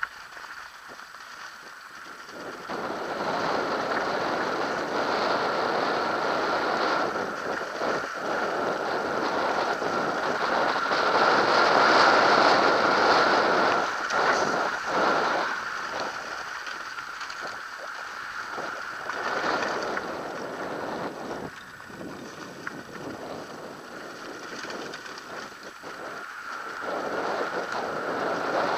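Wind rushing over the microphone of a mountain biker's action camera during a descent on a snowy track, mixed with tyre noise and the jolts of bumps. It swells a couple of seconds in, is loudest around the middle, and eases off later.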